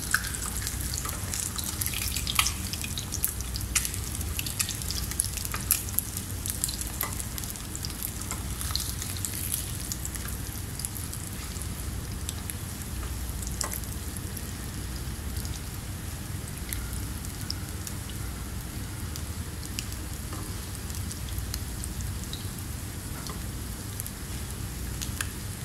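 Tilapia fillets shallow-frying skin-side down in smoking-hot oil in a pan: a steady sizzle with frequent crackling pops, thickest in the first several seconds.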